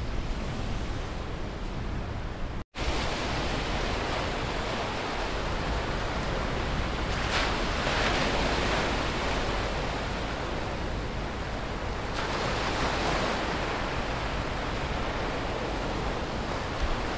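Sea surf washing onto a beach: a steady rush of noise that swells twice, once about seven seconds in and again about twelve seconds in. The sound cuts out for an instant a little under three seconds in.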